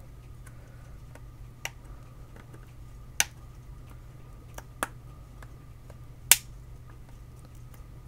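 Flush cutters snipping bits of plastic off the HP 42S calculator's case: sharp single snaps about every second and a half, the loudest about six seconds in, over a faint steady hum.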